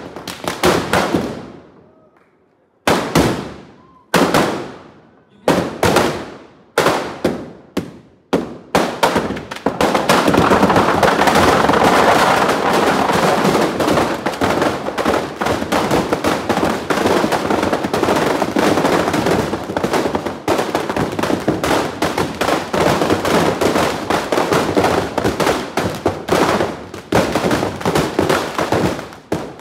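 Firecrackers packed inside a burning Ravan effigy exploding. First come single loud bangs about a second apart, each with a trailing echo. Then, from about ten seconds in, a dense, continuous crackle of many rapid bangs takes over and goes on.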